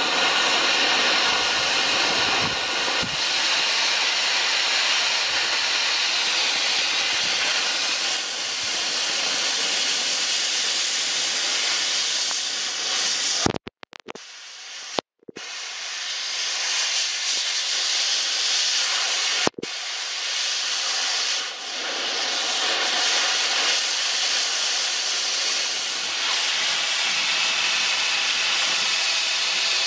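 Oxy-fuel cutting torch hissing steadily as its jet burns through rusted-solid bolts on a steel mower pan. The hiss drops out briefly twice, once about halfway through and again a few seconds later.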